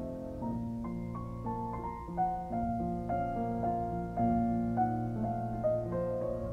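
Background piano music: a gentle melody of separate notes over held low notes.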